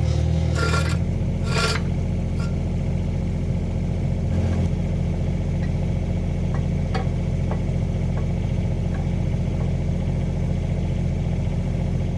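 Mini excavator engine running steadily, with a few sharp clanks in the first two seconds and occasional light ticks after.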